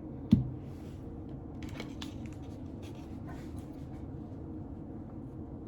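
A single soft thump, followed by faint scattered clicks and rustles of food and packaging being handled while toppings are added to a taco.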